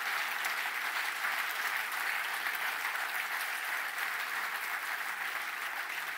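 A large audience applauding, steady clapping throughout.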